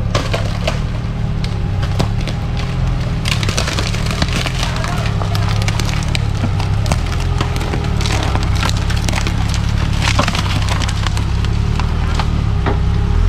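Lifted off-road Jeep Cherokee crawling over fallen dry bamboo, its engine giving a low steady rumble while bamboo stalks and sticks crack and snap under the tyres many times.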